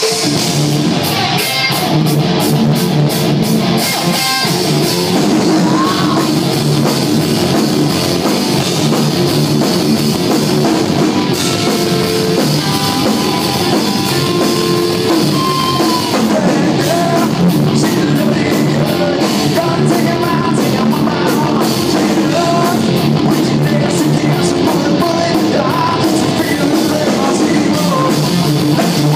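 A rock band playing live: electric guitars and drum kit, with a lead vocal singing over them.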